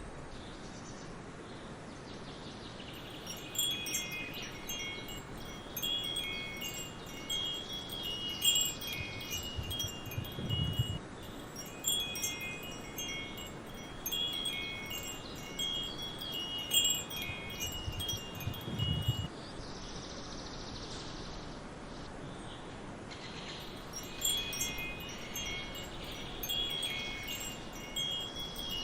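Wind chimes ringing in irregular clusters of high notes over a steady background hiss. The chimes fall quiet for a few seconds at the start and again about two-thirds of the way through.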